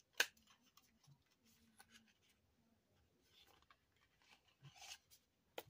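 A small product box being opened and handled by hand. A sharp click about a quarter second in, then faint rustling of packaging, and another sharp click near the end.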